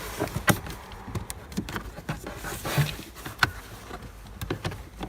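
Irregular light plastic clicks and rustling as hands press the side tabs of a car's cabin air filter cover and work it loose.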